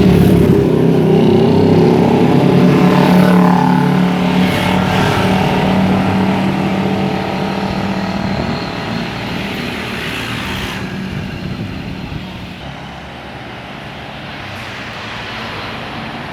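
A bus engine running loud as the bus passes close by, with a shift in pitch a few seconds in. It fades over the second half.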